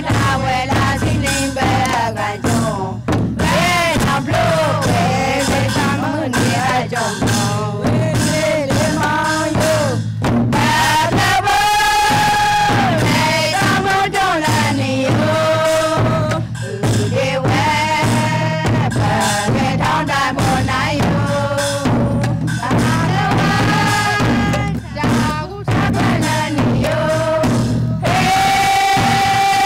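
Group of women singing a Karen traditional Don dance song in unison through a PA, with steady instrumental accompaniment underneath. Long held notes come around twelve seconds in and again near the end.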